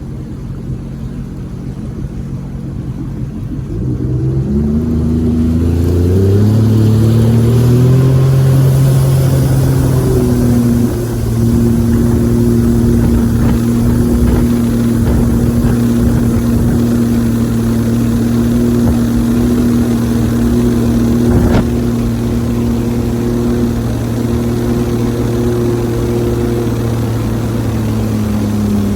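Jet boat's engine throttling up, its pitch rising over a few seconds, then running steadily at cruising speed.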